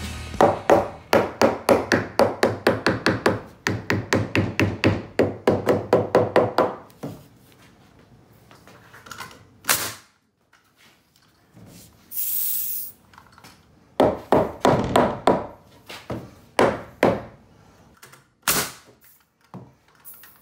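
Pneumatic coil nailer firing into 2x4 framing lumber in fast runs of about six shots a second. A pause with a few single shots and a short hiss of air comes in the middle, then another fast run.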